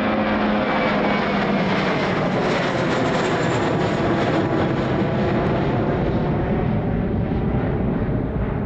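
A passenger aircraft's engines passing close by: a loud, steady rush of engine noise with a pitched tone in it at first. The high part of the noise fades over the last few seconds as the aircraft moves away.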